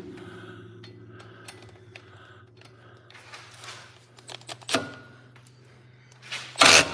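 Hand tools and metal parts clinking and knocking, with a sharp knock about two-thirds of the way in and a loud, short burst of noise near the end, over a steady low hum.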